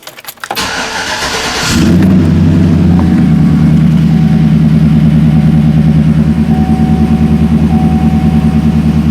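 A 2012 GMC Sierra's 5.3-litre V8 cranking on the starter, catching about two seconds in with a brief flare of revs, then settling into a steady, even idle.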